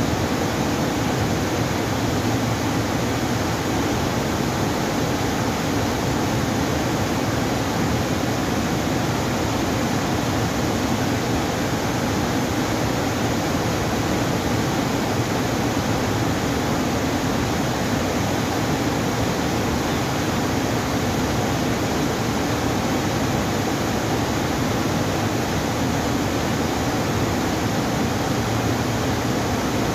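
Steady, even rushing of fast-flowing water, with no change throughout.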